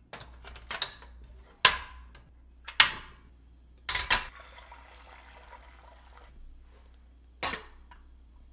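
Sharp metal clanks and knocks from fitting a butane canister into a portable gas stove and setting a stainless steel pot and a glass bowl on it: about five separate knocks, the loudest about three seconds in, some with a short ring after them.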